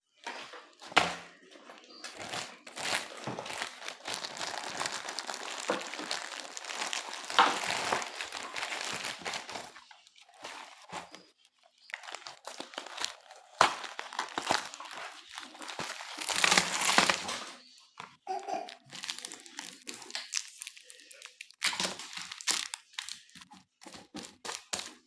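Plastic packaging crinkling and rustling as it is handled, with scattered sharp crackles and a few louder crunches.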